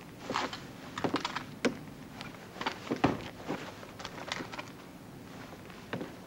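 Irregular knocks and clanks of crewmen moving and climbing about on a tank's hull, a dozen or so short, scattered hits.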